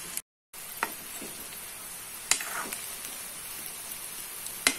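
Bitter gourd pieces and onion frying in oil in a pan, a steady sizzle, with about three sharp clicks of a metal spatula against the pan. The sound drops out completely for a moment just after the start.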